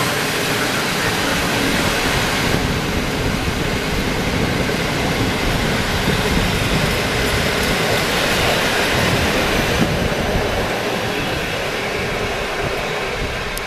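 Steady rumble and rush of steel wheels on rails as a long train of InterCity passenger coaches rolls past close by.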